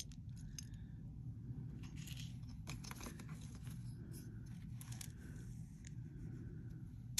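Faint light clicks and rustles of small bead charms and plastic bead-sorting trays being handled and set down, scattered and irregular, over a low steady hum.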